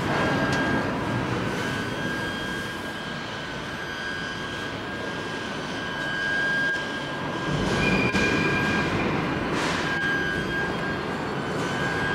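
Steady machine-shop hum with a thin, high, steady whine of running CNC machinery, and a second, higher tone for about half a second around eight seconds in.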